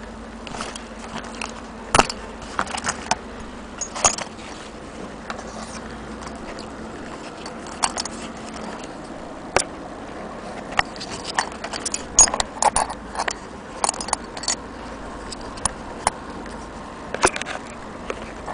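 Small hard objects being handled, giving irregular sharp clicks and clinks, some in quick clusters, over a faint steady hum.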